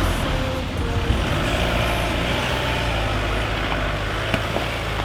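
Pickup truck engine running steadily as the truck drives, with background music underneath.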